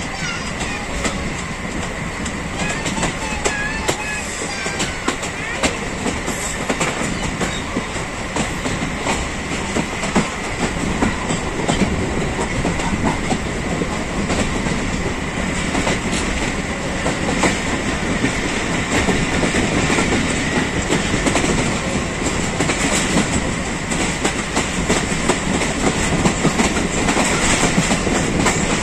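Passenger coaches of a moving train running along the track, heard from an open coach door: a steady rumble and rattle of the wheels with irregular clickety-clack over the rail joints, getting a little louder as it goes.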